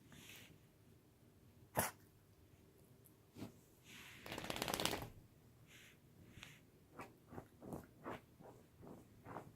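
Jack Russell puppy and mini chihuahua playing: a sharp knock about two seconds in, a short snort from one of the dogs a little after four seconds, then a run of light quick taps, about three a second.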